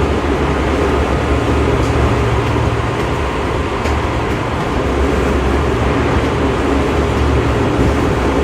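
Odakyu 2000 series electric train running at steady speed, heard from inside the car: a continuous low rumble of wheels and traction gear. The uploader hears an abnormal growl in this run, like a nose-suspended motor drive.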